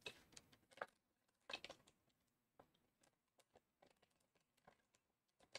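Near silence with faint, irregular mouth clicks and smacks of a person chewing a date, the louder ones in the first two seconds.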